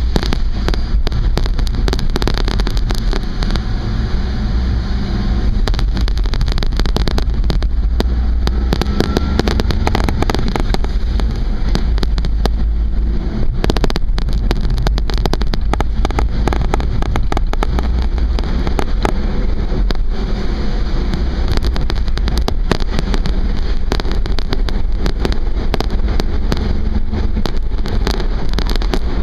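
Vehicle driving along a road: a steady low rumble of engine and road noise, with frequent crackling clicks throughout.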